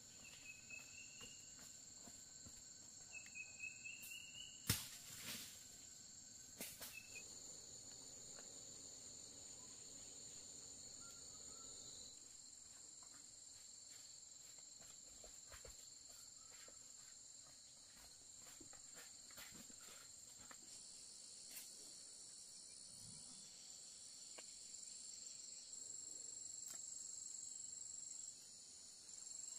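A steady, high-pitched chorus of insects, with a few short rising chirps in the first few seconds and a sharp knock about five seconds in.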